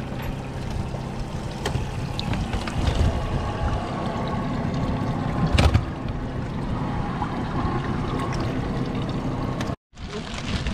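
Yamaha 225 outboard motor idling with a steady low hum, with water sloshing around the boat and a single heavy thump about halfway through. Near the end the sound cuts out for a moment and comes back as wind on the microphone.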